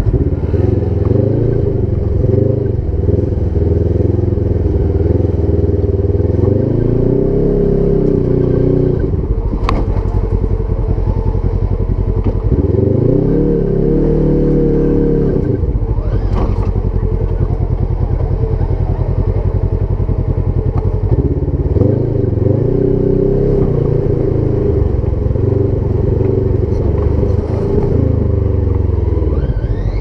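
Polaris RZR side-by-side's parallel-twin engine running hard, its pitch climbing and falling back several times as the throttle is worked, with a couple of sharp clacks about a third and half of the way in.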